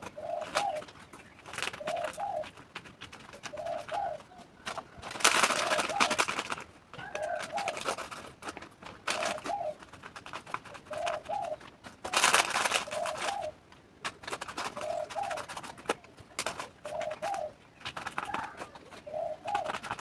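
A bird's short cooing call repeated at a very even pace, about once every two seconds. Two longer bursts of rustling noise, each lasting a second or two, are louder than the calls.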